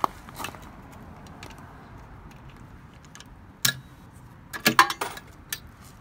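A quarter being fed into the metal coin slot and chute of a coin-operated sound box: a sharp metallic click a little past three and a half seconds in, then a quick clatter of clicks about a second later.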